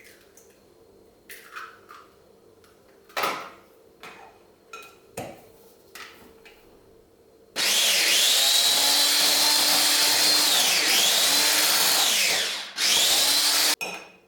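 A small high-speed electric motor appliance runs loudly for about five seconds, its whine dipping in pitch under load and recovering, then runs again briefly after a short pause. Light clicks and knocks of handling come before it starts.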